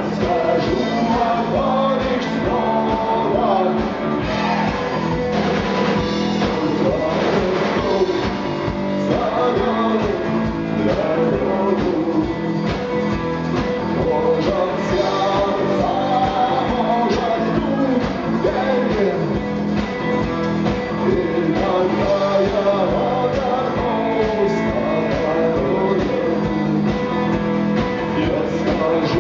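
Live rock band playing loudly and steadily, with drums, bass and electric guitar and a melodic lead line on top.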